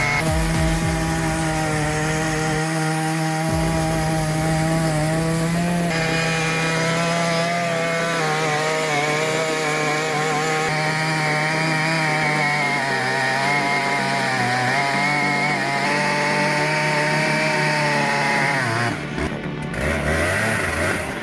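Stihl MS 881 large two-stroke chainsaw running at high revs and cutting through a big log, its pitch wavering under load. The sound breaks off near the end.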